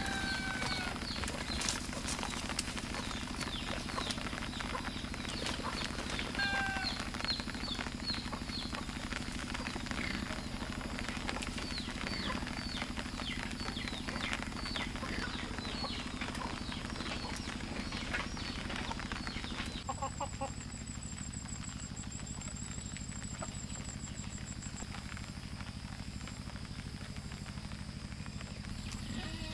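Birds chirping: a dense run of high, quick falling chirps with a few longer calls among them. About twenty seconds in, the sound cuts to a quieter background with a faint high pulsing trill.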